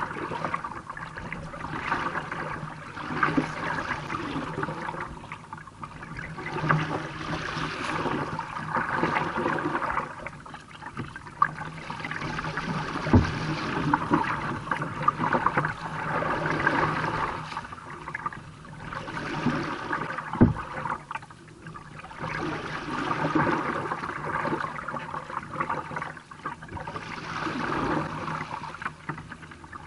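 A kayak moving through choppy water: water splashing and slapping against the hull in surges about every two seconds, with two sharp knocks, one about 13 seconds in and one about 20 seconds in.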